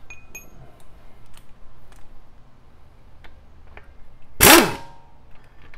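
A short burst of an impact wrench on a wheel lug bolt about four seconds in, its pitch falling as it winds down. Before it, a few light clicks of tools being handled.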